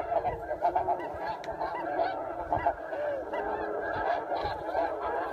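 A flock of geese honking and calling continuously, many overlapping calls at once.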